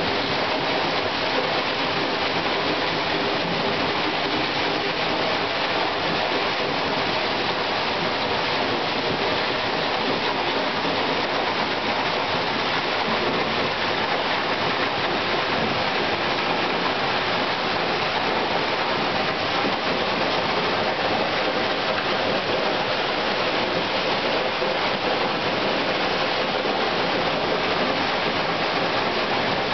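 North Falls pouring down in a steady, unbroken rush of water.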